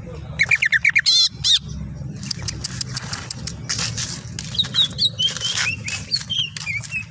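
Green leafbird (cucak ijo) singing a fast, varied run of sweeping chirps, a quick trill and short high whistles mixed with sharp clicking notes, over a steady low hum.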